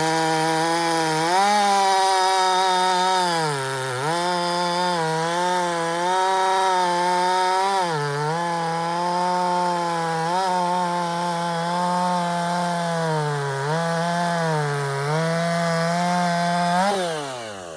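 Husqvarna 450 two-stroke chainsaw (about 50 cc) running at high revs while cutting through oak. Its pitch sags each time the chain bites under load, about four times, then picks up again. Near the end the throttle is released and the engine winds down.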